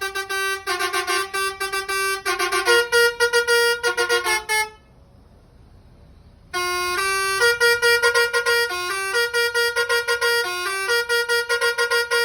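Basuri V3 telolet multi-tone bus horn playing quick melodies of short stepped notes. It stops for about two seconds midway, then plays another tune.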